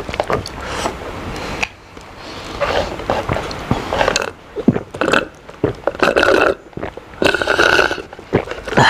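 Drink slurped through a straw from a plastic cup in several separate pulls with short breaks between them, drawing up the last of the drink as the cup empties.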